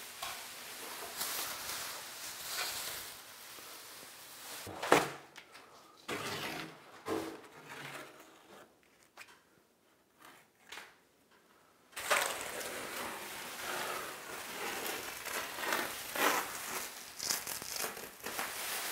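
Plastic masking sheet and painter's tape being handled, crinkling and tearing, with a few short sharp strokes. It nearly stops in the middle and starts again abruptly.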